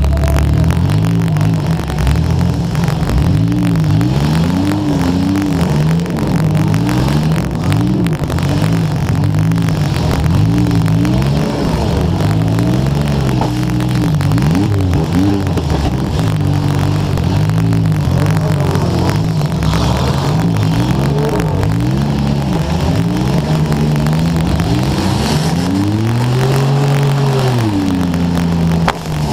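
Demolition derby car engine revving hard, its pitch climbing and dropping again and again as the car accelerates and backs off, with one long high rev near the end.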